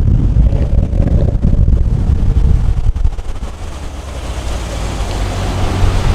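A car on the move: engine and road rumble with wind buffeting the microphone. It drops quieter about three seconds in, then settles into a steadier engine drone that grows louder near the end.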